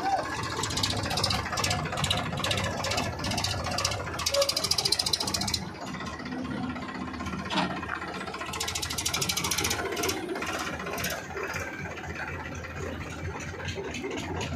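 Powertrac Euro 50 tractor's diesel engine working under load while moving a loaded trolley. It runs with a rapid knocking clatter that grows louder about four seconds in and again around nine seconds.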